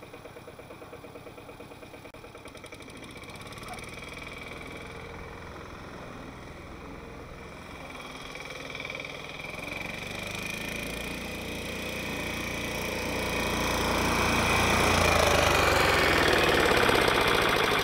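Westwood ride-on mower's diesel engine running steadily, growing louder over the second half.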